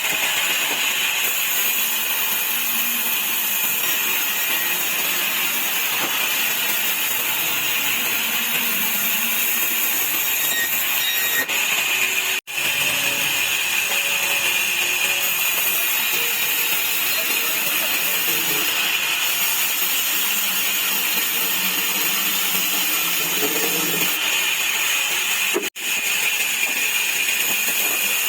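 Sawmill saw running steadily as it cuts wood into slats: a continuous high-pitched whine with a noisy hiss, broken abruptly by two very short gaps.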